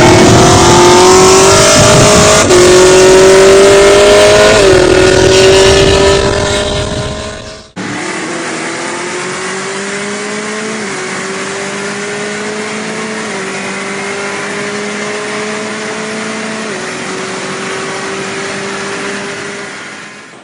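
V8 car accelerating hard in a drag run, its engine pitch climbing and dropping at each upshift, twice in the first few seconds. After an abrupt cut about eight seconds in, a quieter run climbs through three more upshifts and fades away near the end.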